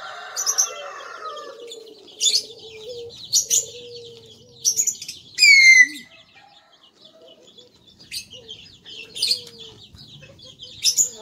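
Chickens clucking with a rooster crowing, and small birds giving repeated short, high, down-sweeping chirps.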